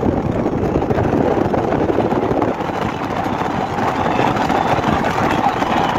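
Steady rushing noise of a car driving through a road tunnel: tyre, engine and air noise together, with a steady mid-pitched hum joining about halfway through.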